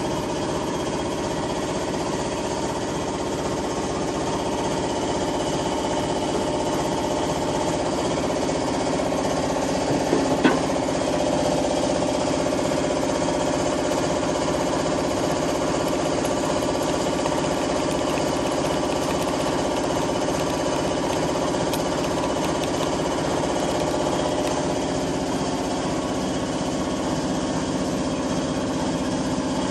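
Air compressor for a paint spray gun running steadily with an even mechanical drone, with one short knock about ten seconds in.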